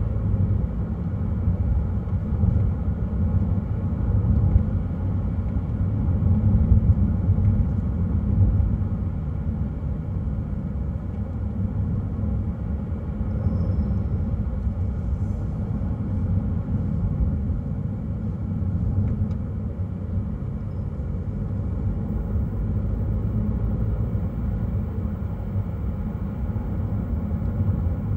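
Car driving at a steady speed: a steady low rumble of tyre and engine noise.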